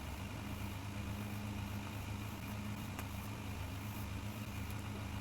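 RevAir reverse-air hair dryer running steadily, a low motor hum with an airy hiss over it. A faint click about three seconds in.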